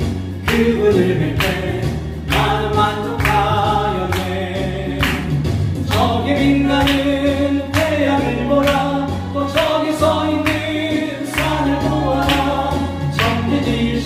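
A man singing a Korean worship song into a microphone over a backing accompaniment with a steady beat.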